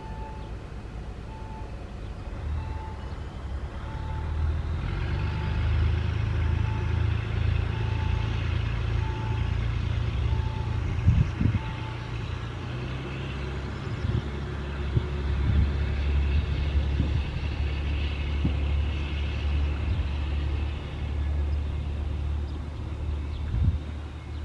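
SA108 diesel railcar pulling away from a halt: its engine revs up about four seconds in and then drones steadily as the train moves off, the drone shifting in pitch about halfway. A short electronic beep repeats a little more often than once a second and stops about halfway through.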